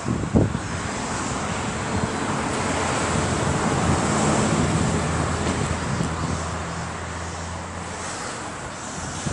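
A car driving slowly past at low speed, its engine and tyres rising to a peak about four seconds in and then fading away. Short thumps of wind or handling on the microphone near the start.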